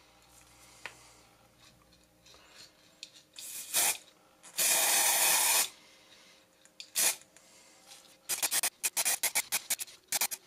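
Aerosol spray-paint can spraying in hissing bursts: a short spurt, then a longer spray of about a second, then a string of quick short spurts near the end.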